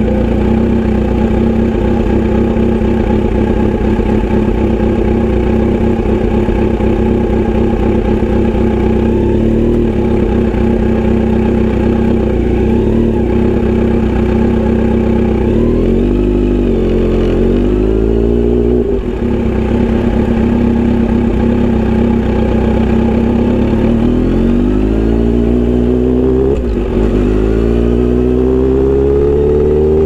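Kawasaki Z900RS inline-four breathing through a Misty Kintaro short aftermarket exhaust (L silencer, black steel pipe). It runs low and steady for about the first half, then pulls away: the revs rise in several runs, each broken by a short drop at a gear change.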